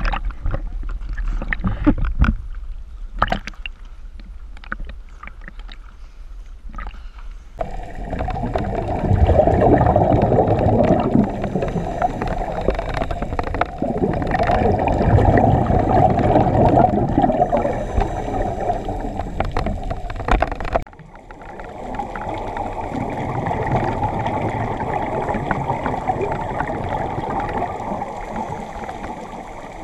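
Scuba diving heard through an underwater camera housing: water slapping and splashing against the housing at the surface for the first several seconds, then a muffled, continuous bubbling rush of divers' exhaled regulator bubbles underwater, with a brief drop near two-thirds of the way through.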